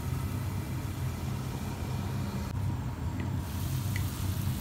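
Hilsa fish frying in mustard paste in a covered frying pan: a steady, muffled sizzle over a constant low hum.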